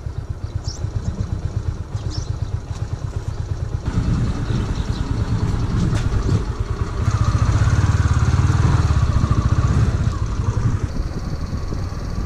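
Motorcycle engine running with a steady low beat, louder through the middle stretch as the bike pulls away under throttle.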